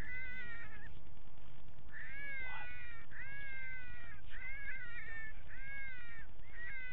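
Electronic predator call playing a rabbit-distress recording: a run of high, wailing cries, each under a second, repeating about once a second, over a low steady hum.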